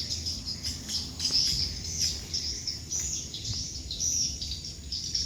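Swiftlets twittering: a steady stream of high, repeated chirping calls over a low rumble.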